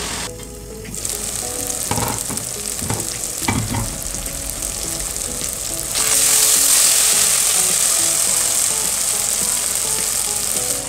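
Diced tomatoes and potatoes with fried onion sizzling in oil in a nonstick pot as a wooden slotted spatula stirs through them, with a few knocks of the spatula between about two and four seconds in. The sizzle gets louder about six seconds in.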